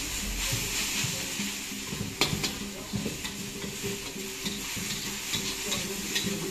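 Vegetable chow mein sizzling in a hot wok as a metal spatula stirs and tosses it, with repeated clinks and scrapes of the spatula against the pan and one sharper clank about two seconds in.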